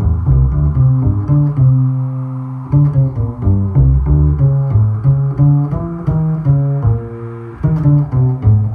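Improvised instrumental music: a quick run of plucked notes, several a second, on low-pitched stringed instruments, the bass and the baritone electric guitar, each note struck sharply and then fading.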